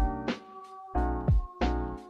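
Background music: a steady beat of deep kick drums and sharp percussion hits under sustained chords.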